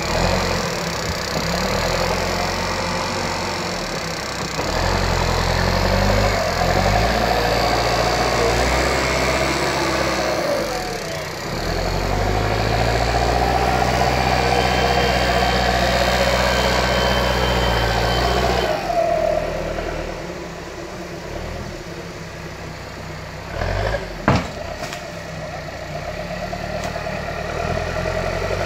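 Bulldozer's diesel engine working, its pitch and load rising and falling as the machine pushes, then settling lower and quieter near two-thirds of the way through. One sharp metallic clank about 24 seconds in is the loudest moment.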